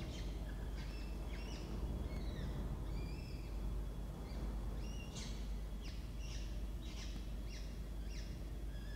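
Newly hatched peregrine falcon chicks peeping: a run of short, high chirps that come about two a second in the second half, over a steady low background rumble.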